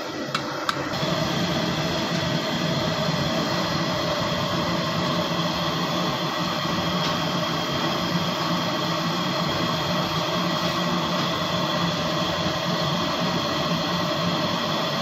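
Steady machine noise with several constant tones, like a running motor or fan, stepping up slightly after two short clicks about a second in.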